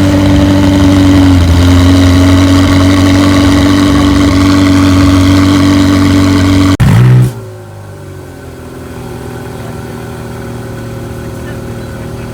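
A sports car engine held at steady high revs for about seven seconds, then a short rising blip, after which it drops back to a much quieter, steady idle.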